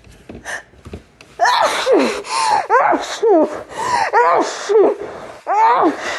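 A woman's sneezing fit. A few short breathy gasps come first, then from about a second in a rapid run of loud, voiced sneezes, each falling in pitch. These are held-back sneezes breaking through.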